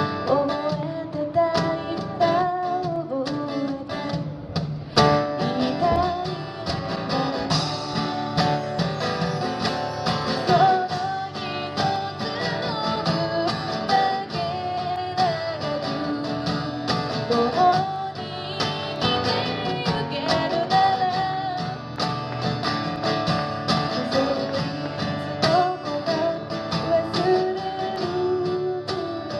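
Live acoustic guitar music: an instrumental passage with a wavering melody line over plucked and strummed chords.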